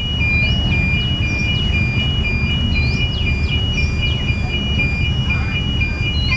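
Electronic railway level-crossing warning alarm sounding two alternating high tones about twice a second, over the low rumble of an approaching CC201 diesel-electric locomotive. Short falling bird chirps sound now and then.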